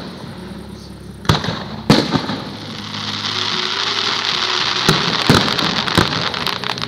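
Professional display fireworks: aerial shells burst with two sharp bangs a second or two in. From about three seconds in, a dense, building crackle of many small pops follows, with further bangs near the end.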